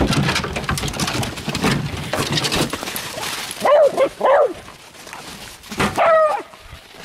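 Beagles scuffling and rustling as they come out of a straw-bedded dog box, then two short yips in quick succession and, a couple of seconds later, one longer yelp.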